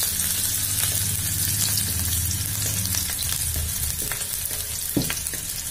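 Chopped onion and green chilli sizzling in hot oil in a metal kadhai, stirred with a wooden spatula that scrapes and taps against the pan. There is one sharper tap about five seconds in.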